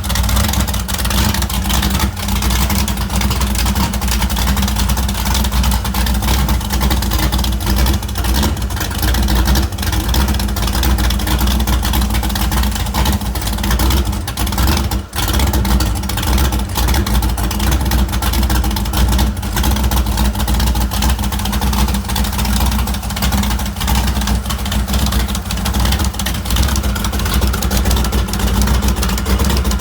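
Freshly rebuilt 385 engine running steadily and loud on its first start, at an even speed, with a brief drop in level about fifteen seconds in.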